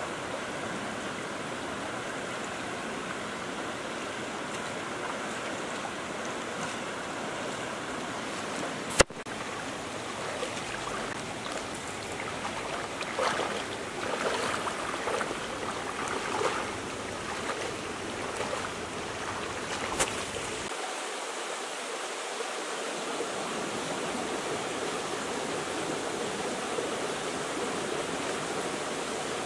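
Shallow rocky stream running, a steady rush of water over stones, with irregular splashing from wading a little past the middle. A single sharp click about nine seconds in and a fainter one about twenty seconds in.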